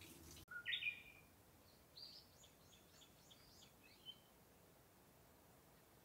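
Wild birds calling: a loud short call about half a second in, then a quick run of high, short chirps over the next two seconds and a single note near four seconds, over quiet background.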